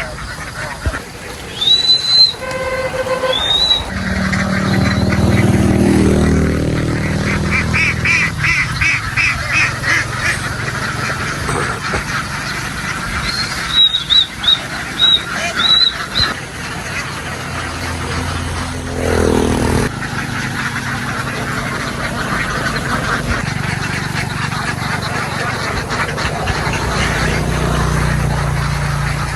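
A flock of farm ducks quacking and calling together, with a few short, sharp high chirps about two seconds in and again around the middle.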